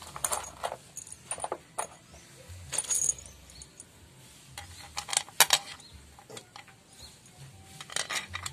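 Irregular metallic clinks and knocks of hand tools and engine parts being handled. The loudest cluster comes about five seconds in.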